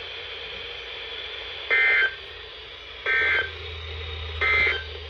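Three short electronic beeps, about a second and a half apart, over the steady hiss of a weather radio between warning messages, with a low hum coming in partway through.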